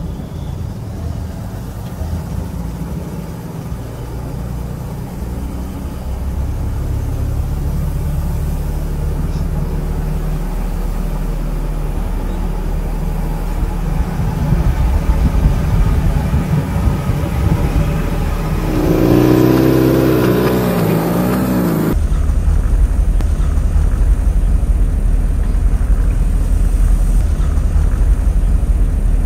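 Toyota Land Cruiser driving along a country road: a steady low engine and road rumble. About two-thirds of the way through, a louder wavering pitched sound is heard for about three seconds.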